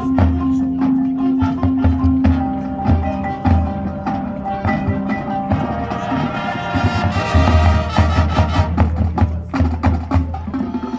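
Percussion-heavy music: mallet keyboards and bell-like chimes play held and struck notes over repeated low drum hits. The drum hits grow denser about seven seconds in.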